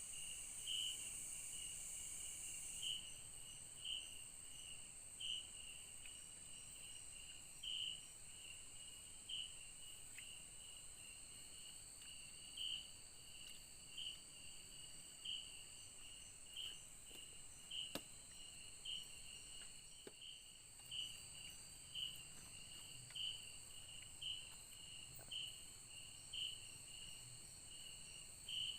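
Night chorus of rainforest insects: a steady high-pitched drone, with a short chirp repeating about once a second.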